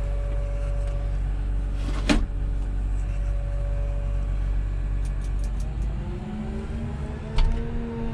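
Cat 335 Next Gen excavator's diesel engine idling steadily, heard from inside the cab, with a sharp click about two seconds in. About six seconds in the engine speed comes up, its pitch climbing for a couple of seconds and then holding, with another click near the end.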